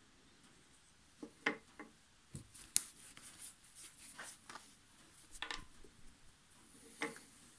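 Scattered light clicks and knocks of small wooden parts and a plastic glue bottle being handled on a wooden board, the sharpest about one and a half and three seconds in.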